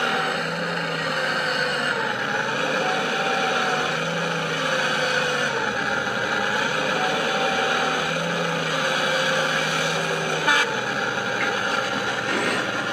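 Working whine of an RC model hydraulic excavator's pump and motors, coming and going in several stretches and bending up and down in pitch as the boom and bucket move, over a steady mechanical hum. A single sharp clack about ten and a half seconds in.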